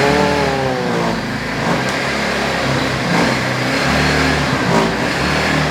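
ATV engine revving: the pitch falls off over the first second, then the revs rise and drop again several times.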